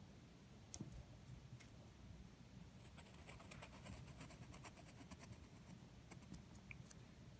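Faint scratching of a pencil drawing lines on paper, a run of small quick scratches from about three seconds in until near the end.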